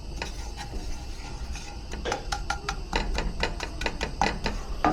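Kitchen clatter: a quick, irregular run of light clicks and knocks from utensils and cookware, some with a short ring, starting about two seconds in.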